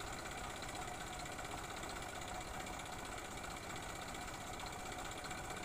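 Massey Ferguson 1035 DI tractor's three-cylinder diesel engine running steadily.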